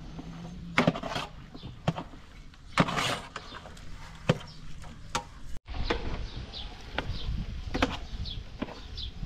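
Metal ladle knocking and scraping against a large metal cooking pot while a thick sauce is stirred, in a handful of irregular sharp knocks.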